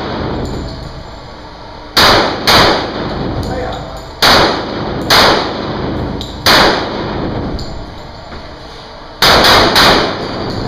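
A string of about seven pistol shots in an indoor range, each echoing. They come as a quick pair, three spaced single shots, then a fast cluster near the end.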